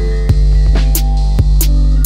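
Music with a drum beat over a steady low bass drone.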